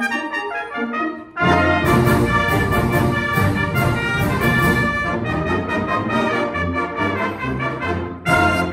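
Youth brass band playing together. A lighter passage breaks off about a second in and the full band comes in loud, with a short break near the end before it plays on.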